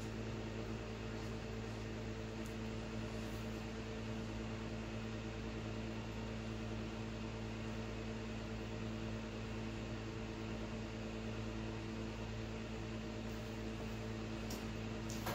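Steady electrical hum with a light hiss, a constant background drone of the room.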